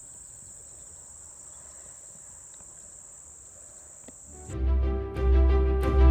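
Insects droning steadily in one high, thin tone. About four and a half seconds in it cuts off and loud music with a deep bass comes in.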